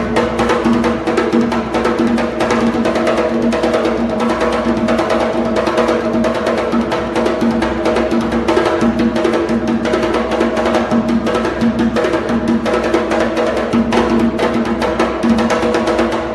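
Drums played together in a fast, steady rhythm that keeps going without a break.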